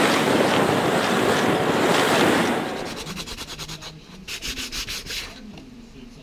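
A steady rush of wind noise on the microphone for the first two and a half seconds. Then sandpaper rubbed by hand along an oak hammer handle, with a quick run of rubbing strokes about four seconds in.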